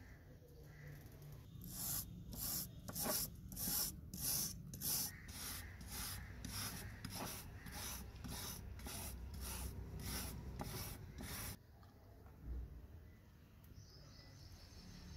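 Wire brush scrubbing the rusty die-cast body of a model car, in quick back-and-forth strokes of about three a second that stop suddenly. Near the end, water pours into a plastic tub.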